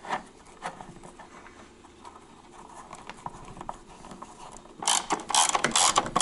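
Quiet rubbing and handling as a heavy 2/0 fine-strand cable with a ferrule is worked into the inverter's DC terminal lug. From about five seconds in comes a fast run of loud ratchet clicks as a hex bit tightens the lug's set screw down on the cable.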